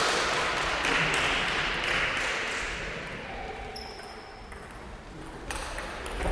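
Noise from people in the hall fades over the first few seconds. Near the end a table tennis ball clicks sharply off bat and table as a serve is played.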